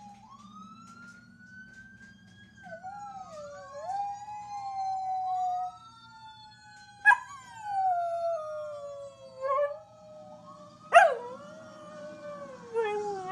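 Fire truck sirens wailing, several slow rising-and-falling tones overlapping, while a one-year-old chihuahua–pit bull–terrier mix dog howls along in long wavering howls. Two of the howls start with a sudden loud yip, about seven and eleven seconds in.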